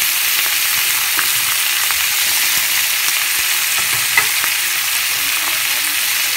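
Sliced onions sizzling in hot oil in a wok: a steady frying hiss with a few small pops, and one sharp click about four seconds in.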